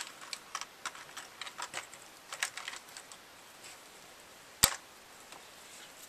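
Rummaging for and handling small cleaning brushes and tools. It gives a run of light clicks and rattles over the first half, then one sharp knock about two-thirds of the way in.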